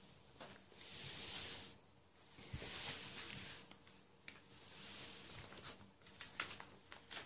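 Plastic sleeve pages of a card binder being handled: soft rustling swells every couple of seconds, then a few light clicks near the end.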